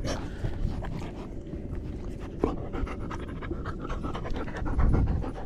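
Dog panting close to the microphone, with a low rumble on the microphone near the end.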